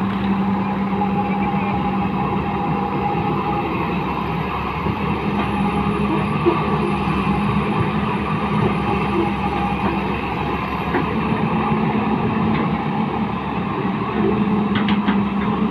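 Diesel engine of a Hyundai 220 crawler excavator running steadily while the machine digs and swings its boom, a constant engine hum.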